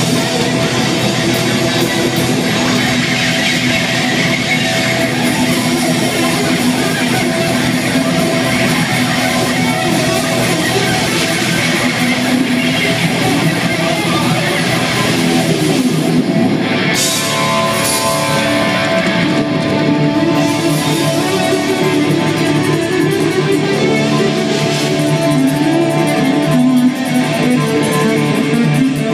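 Live rock band playing loudly: a lead electric guitar line over bass guitar and drum kit, heard from among the audience in a concert hall.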